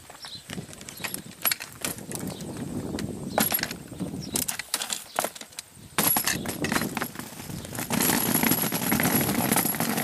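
A hard-shell wheeled suitcase is handled and lifted out of a car boot with scattered clicks and knocks. About six seconds in, a steady rolling noise takes over and grows louder, as its small wheels roll over rough tarmac.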